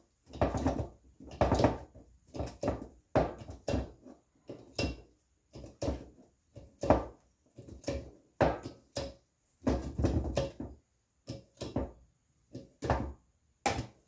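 A series of irregular knocks and thumps, one or two a second, with near silence between them.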